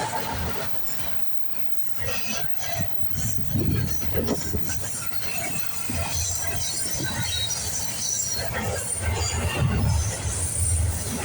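Freight cars of a CSX intermodal and autorack train rolling past with a steady low rumble and irregular wheel knocks, with short high squeals from the wheels.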